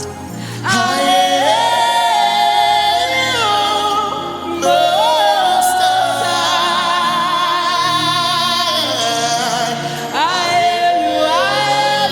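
Gospel worship music: a singer holding long notes that bend and waver in pitch, over continuous instrumental accompaniment.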